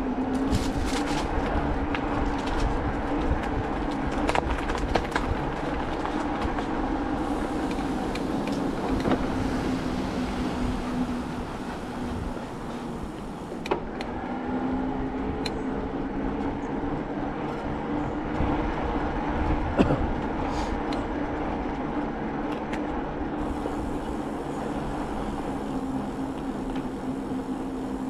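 Bicycle riding along a path: steady rolling tyre and drivetrain noise with a steady hum, and scattered knocks and rattles from bumps, the sharpest about 20 seconds in.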